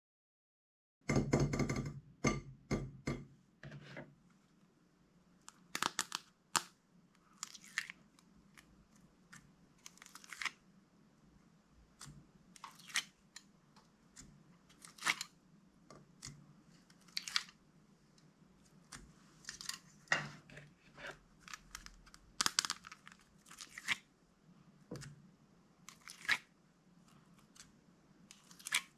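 Slime being pressed and stretched by hand, giving short crackling pops every second or two, with a quick cluster of them about a second in.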